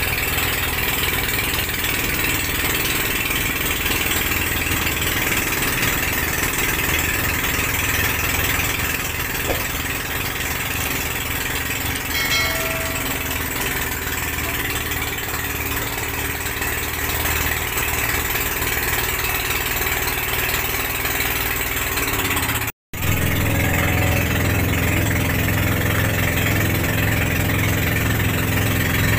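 Outrigger boat's engine running steadily under way, with a hiss of wind and water over it. The sound cuts out for a split second about three quarters of the way through, then carries on.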